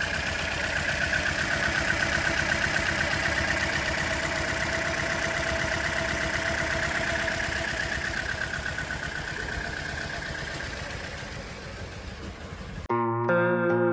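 Toyota Corolla engine idling steadily with a high whine over it, fading slightly toward the end. About a second before the end it cuts off suddenly and guitar music begins.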